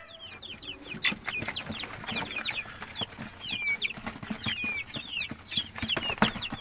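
A group of Jersey Giant chicks peeping: a constant run of short, high, downward-sliding peeps, several a second and overlapping one another.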